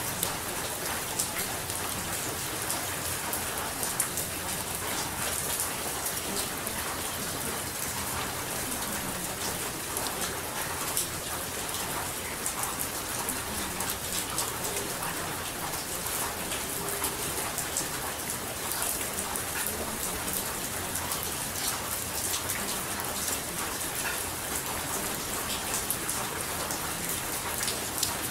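Steady rain falling, a continuous hiss with many small drop patters and no change in level.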